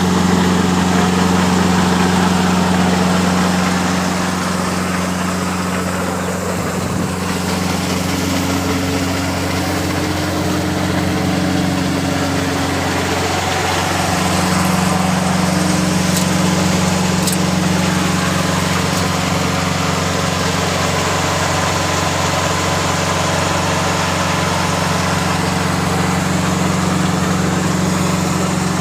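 Mini rice combine harvester running steadily: a constant engine hum under a dense mechanical noise, with small shifts in pitch partway through.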